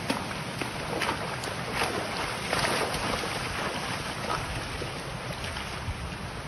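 Steady rushing noise of wind on the microphone outdoors, with faint irregular gusts.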